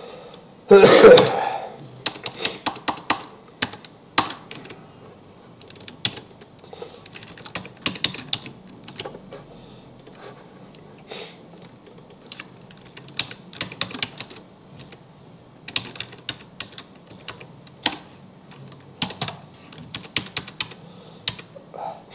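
Typing on a computer keyboard: irregular runs of key clicks with short pauses between them. About a second in, a short loud noise stands out as the loudest sound.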